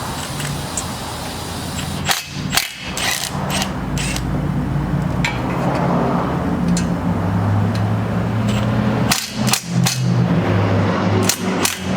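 Metal tools clicking and knocking against the car while the exhaust header is unbolted, in clusters about two seconds in, near nine seconds and near the end, over a steady low hum.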